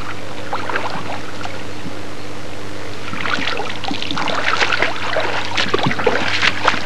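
Water splashing and dripping as a landing net holding a fish is lifted out of the water and the angler wades through the shallows. The splashes start about three seconds in and come thick and irregular, over a steady low hum.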